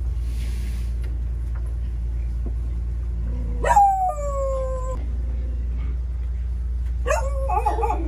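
Two drawn-out animal calls over a steady low rumble: the first, about halfway in, slides down in pitch; the second, near the end, is shorter and wavers.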